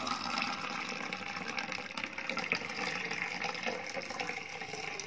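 Cucumber juice poured in a steady stream into a glass, the liquid splashing as the glass fills.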